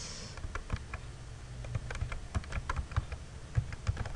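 Computer keyboard being typed on: an irregular run of quick key clicks, a few keystrokes a second.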